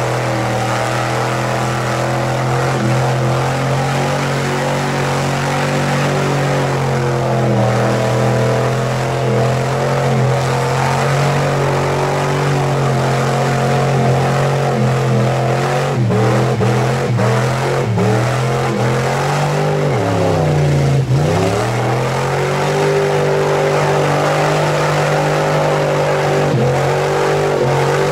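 Lifted pickup truck's engine running at high, held revs as it churns through a deep mud bog, tires spinning and throwing mud. The engine note wavers a few times past the midpoint, drops sharply a little after two-thirds of the way, then climbs back to a steady pitch.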